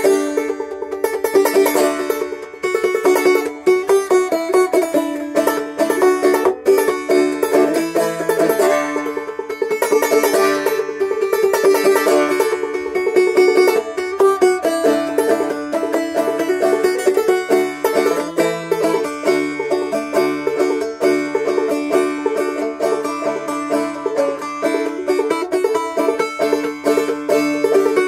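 Solo banjo played clawhammer style, a steady strummed-and-plucked rhythm carrying a Christmas carol melody over a ringing drone. The player believes it is in D, from C tuning with a capo.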